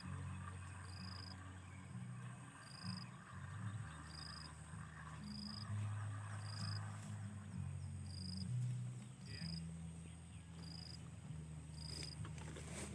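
Wild animal calls: a low, steady droning call that shifts pitch in steps, with a short high chirp repeating about once a second.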